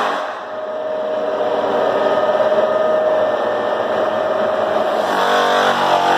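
Clarke American split-drum floor sander sanding a hardwood floor: a rough grinding noise with a steady whine over it. The motor's even hum comes back about five seconds in.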